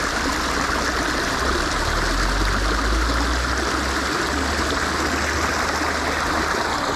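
Steady rush of flowing stream water, with a low rumble strongest for a couple of seconds in the middle.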